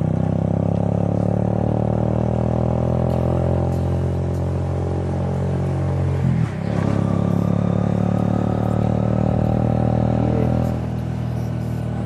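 Motorcycle engine running steadily under way, heard from the rider's position. The engine note breaks briefly about halfway through, then picks up again and eases a little quieter near the end.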